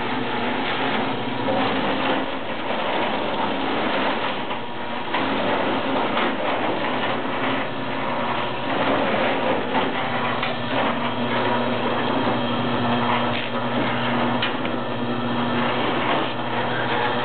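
Electric wire stripping machine running steadily, its motor humming, with an irregular crackle and clatter.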